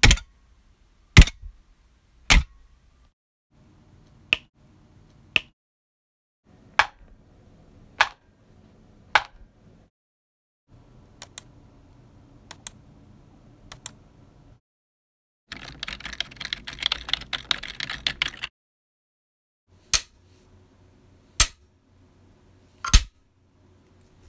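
A string of foley sound effects: single sharp clicks and knocks, one every second or so, with about three seconds of rapid clattering taps in the middle, each bit cut off abruptly into silence.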